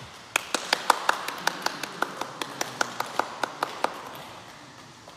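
A quick run of about twenty sharp hand slaps, roughly five a second, ringing in a large hall; they fade a little and stop about four seconds in.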